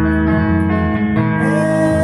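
Live band music led by plucked and strummed guitars, with a held note sliding in about one and a half seconds in.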